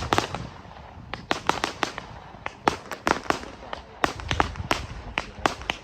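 Fireworks going off: a rapid, irregular run of sharp bangs, several a second, with no let-up.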